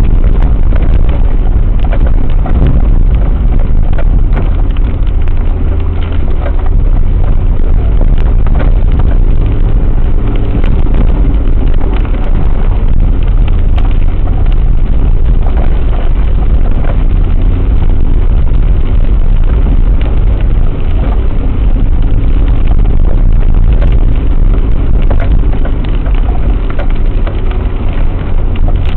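A four-wheel drive driven slowly over a rough, wet dirt track, heard from a dashcam in the cab: a steady, deep engine and road rumble with frequent small knocks and rattles as the vehicle jolts along.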